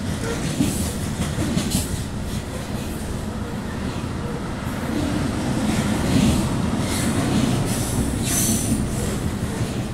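Freight train cars rolling past directly below, a steady rumble of steel wheels on the rail. Brief high-pitched wheel squeals come now and then.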